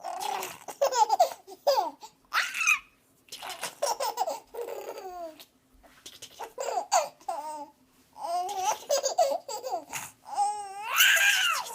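Baby laughing and babbling in short bursts, with a long high squeal that rises and falls near the end.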